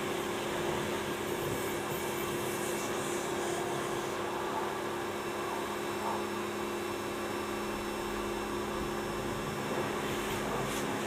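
Steady mechanical hum with two constant low tones over an even wash of noise.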